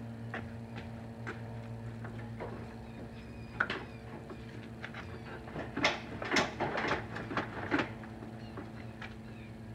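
Scattered sharp clicks and clatter of hands working at the front bumper of a Dodge Charger, loosening its fasteners, with one click about three and a half seconds in and a burst of them from about six to eight seconds in. A steady low hum runs underneath, with a few faint high chirps.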